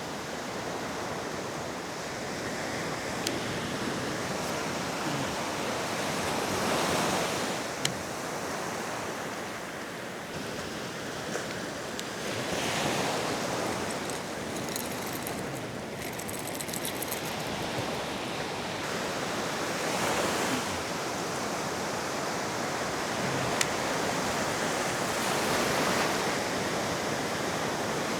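Ocean surf breaking on a beach, swelling and easing about every six to seven seconds, with a few faint sharp clicks.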